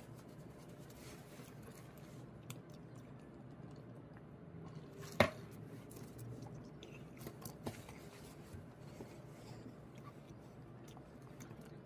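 Faint chewing of fast food and light handling of nuggets and a dipping-sauce cup, over a low steady room hum. One sharp click about five seconds in.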